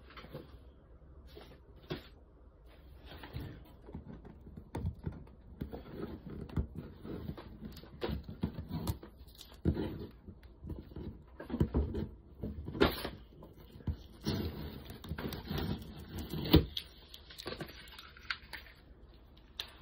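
Rustling with many irregular light knocks and clicks, the sound of things being handled and moved about at close range, busier in the second half.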